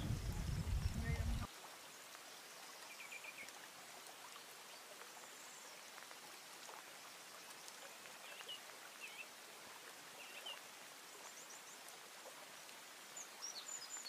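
Faint outdoor ambience: a steady soft hiss with scattered small bird chirps and short trills. A loud low rumble cuts off suddenly about a second and a half in.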